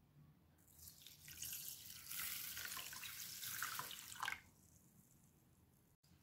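Water poured into a bowl of dry long-grain rice and lentils, splashing and pattering on the grains for about four seconds before it stops abruptly, as the grains are washed.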